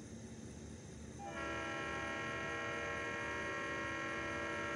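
EMD diesel locomotive's air horn sounding one long, steady blast, several notes at once, starting a little over a second in and lasting about three and a half seconds.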